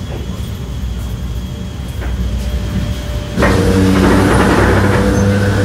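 Camshaft-controlled traction motors of Sydney's vintage single-deck electric train. A low steady rumble, then, about three and a half seconds in, the master controller is moved from off to series. Power comes on with a sudden, louder hum of several steady low tones.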